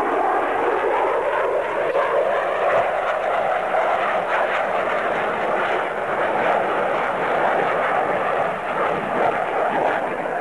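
Jet noise of a Su-47 Berkut's twin D-30F6 turbofan engines as it flies past and manoeuvres overhead: a loud, steady rush whose pitch falls in the first second.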